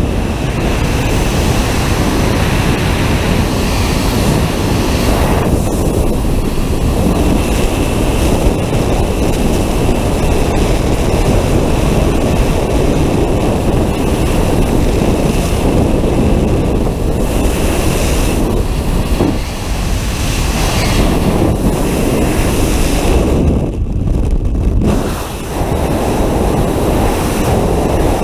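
Loud, steady rush of freefall wind buffeting an action camera's microphone during a tandem skydive, easing briefly twice in the last third.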